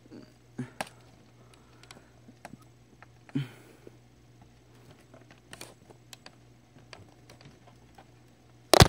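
Scattered light clicks and taps of plastic and small tools being handled, with one loud sharp knock near the end, over a faint steady low hum.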